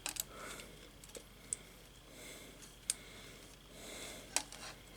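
A handful of faint, sharp clicks and light handling noises: fire alarm cable being fitted into a terminal on a plastic alarm mounting bracket.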